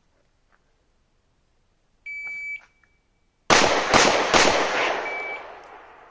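A shot timer's start beep, then about a second later three pistol shots fired roughly half a second apart, ringing out with a long echo; a second short beep follows near the end.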